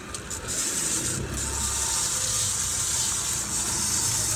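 Fishing boat's engine running steadily under throttle, a low rumble under a steady hiss of wind and water.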